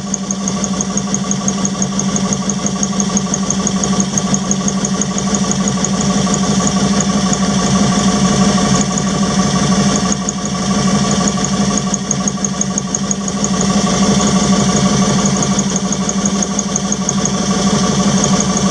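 Ford eight-cylinder gas engine of a Grimmer Schmidt 125 towable air compressor running steadily, with a fast, regular light ticking over its hum.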